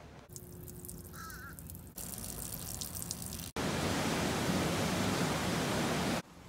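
Surf washing up on a sandy beach, a loud steady rush that starts suddenly about three and a half seconds in and cuts off abruptly near the end. Before it, quieter sound with a short bird call about a second in.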